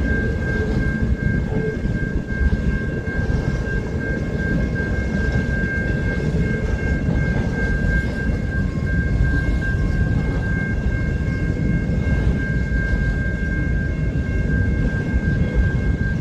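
Freight train of autorack cars rolling steadily past: a constant low rumble of wheels on rail joints and cars, with a thin steady high ringing tone running above it.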